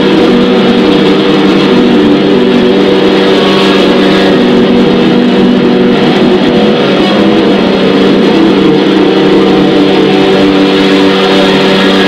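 Amplified guitar noise improvisation on prepared guitar: a loud, dense, unbroken wall of distorted sound over several steady low droning tones.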